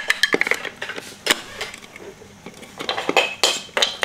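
Plastic LEGO Duplo bricks clacking and knocking together as they are handled: scattered sharp clicks, with a quick run of them near the end.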